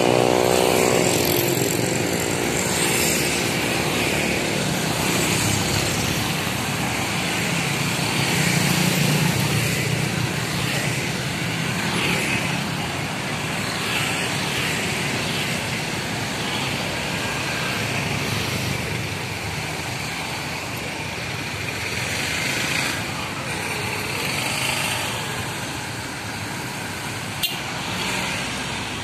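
Steady road traffic passing close by, mostly motorcycles and cars with trucks among them. A pitched engine note fades away in the first second or so, and there is a single sharp click near the end.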